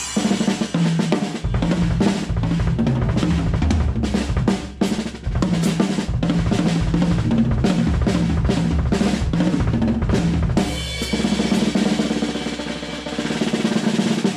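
Drum kit played freely with fast bass drum, snare and tom hits and cymbals. About eleven seconds in, the deep kick drum drops away and the playing goes on lighter.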